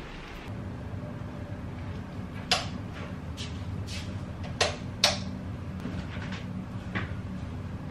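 Several sharp knocks and clicks of things being handled in a kitchen, the loudest three about two and a half, four and a half and five seconds in, over a steady low hum.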